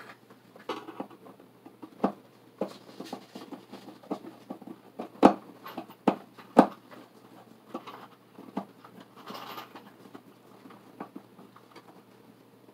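Irregular clicks, taps and rustles of hands and a hand tool working the cables and wires at an open breaker panel, with two sharp knocks a little past halfway.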